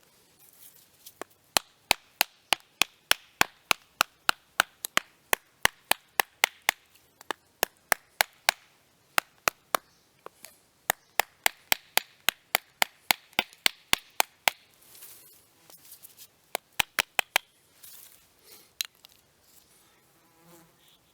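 Knife being batoned through a short log: a wooden baton strikes the blade's spine in a rapid series of sharp knocks, about three a second. After a short pause there is a brief final flurry of strikes.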